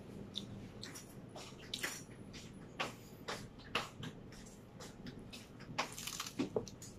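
Close-up mouth sounds of eating butter-toasted French bread: irregular crunches and wet smacks while chewing, a few of them sharper.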